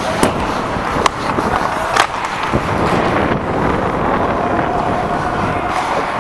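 Ice hockey skates scraping and carving on the ice, heard close up from a helmet-worn camera, with sharp stick-and-puck clacks about a quarter second, one second and two seconds in.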